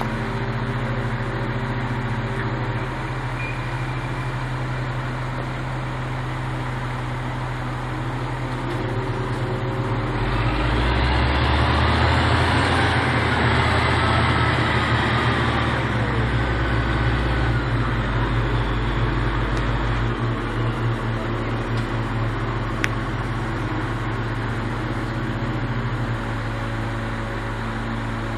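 Heavy diesel engine running steadily. About a third of the way in it grows louder and deeper, as if working harder, for several seconds before easing back to its earlier level.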